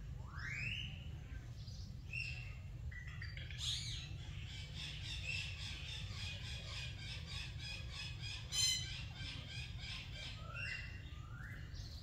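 Birds calling: sweeping rising notes near the start and again near the end, and a fast run of repeated notes for about four seconds in the middle, broken by one sharp, louder note. A steady low rumble runs underneath.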